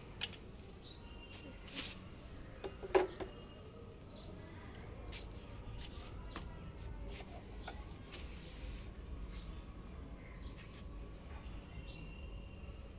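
Hollow plastic knocks and clicks as a toy cricket wicket set's plastic stumps are pushed into their base and the bails handled, with one sharper knock about three seconds in. Faint bird chirps now and then behind it.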